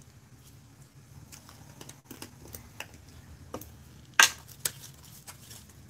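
Light clicks and taps of a plastic glitter shaker jar and gloved hands at a work table. A sharper knock comes about four seconds in, and a second smaller one just after. A low steady hum runs underneath.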